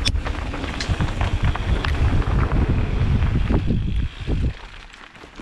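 Wind buffeting a helmet-mounted camera's microphone while a mountain bike rattles over a rough dirt trail, with many small knocks from the bike and tyres. The noise drops off sharply about four and a half seconds in as the bike slows.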